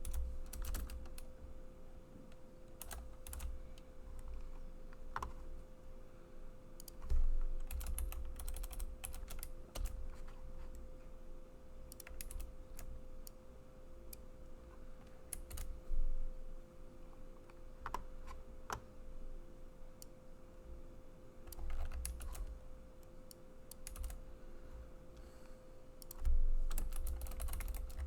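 Typing on a computer keyboard: irregular runs of keystrokes with pauses between, a few heavier low thuds among them, over a faint steady hum.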